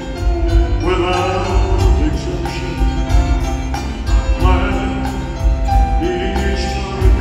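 Live rock band playing with a steady drum beat, bass, electric guitars and keyboards, heard loud through a concert hall's sound system.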